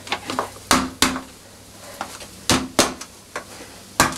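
Metal farçon mould, held in a tea towel, being knocked several times, sharp knocks some in quick pairs, to loosen the baked potato farçon so it can be turned out.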